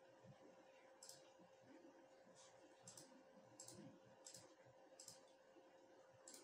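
Faint computer mouse clicks, about seven spread irregularly over several seconds, over a low steady hum.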